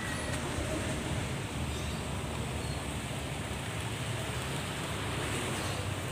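Steady background noise: a low rumble with an even hiss over it, with no distinct events.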